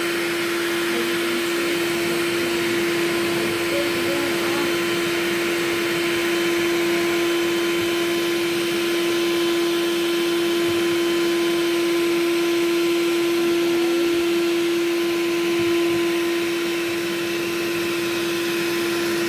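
Black & Decker 14.4 V 2-in-1 cordless stick vacuum running steadily: a constant motor whine over the rush of air being sucked in.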